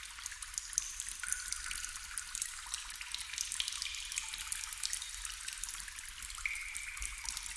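Water trickling steadily, with many small drips and splashes.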